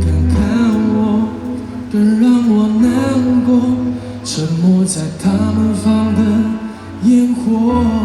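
Live pop ballad performance: band accompaniment with guitar under a sung melody line.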